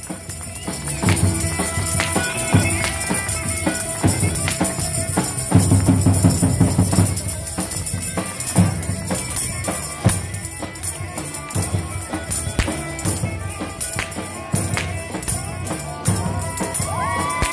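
Tapan drums, the big Balkan double-headed drums beaten with sticks, playing a lively rhythm of repeated beats for a wedding procession.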